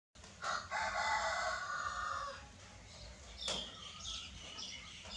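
A rooster crowing once, a long call of about two seconds starting about half a second in, followed by a few shorter, higher calls.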